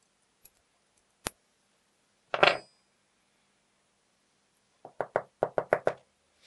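Small metal parts of a lock cylinder clicking and knocking as they are handled and set down on a wooden workbench: a sharp click, then a louder clatter with a brief metallic ring about two and a half seconds in, and a quick run of about eight light knocks near the end.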